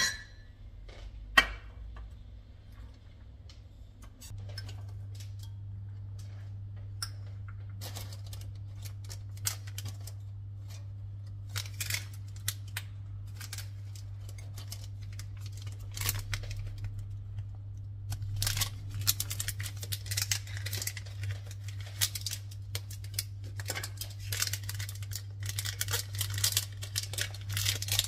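Scattered clicks and light knocks of objects being handled, over a steady low hum that comes on about four seconds in; the clatter grows denser and hissier in the second half.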